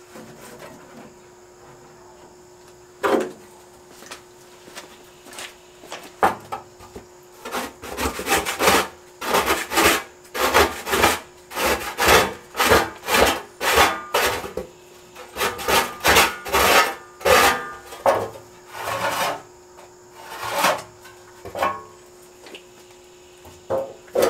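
Hand scraper rasping over a metal panel from a Traeger pellet smoker in repeated strokes, one to two a second, clearing off old grease and cooked-on remnants. A single knock comes about three seconds in, and the strokes begin a few seconds later and stop shortly before the end.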